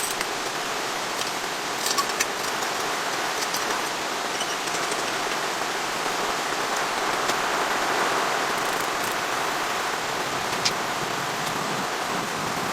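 Steady rain, with a few sharper drop taps about two seconds in and once near the end.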